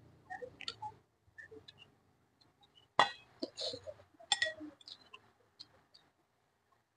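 Wooden chopsticks clinking against a glass rice bowl in a few short, sharp taps, the loudest about three seconds in and another just after four seconds, with quiet chewing and mouth sounds between.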